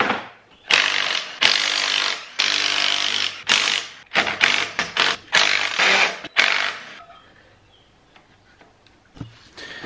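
Cordless drill-driver spinning out the bolts of a quad bike engine's magneto side cover, in about eight short bursts. It falls quiet about seven seconds in.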